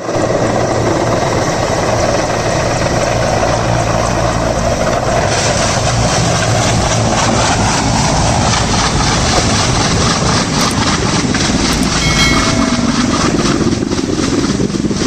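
Helicopter's rotor and turbine engine running loud and steady at close range. A rhythmic blade chop becomes plain about five seconds in.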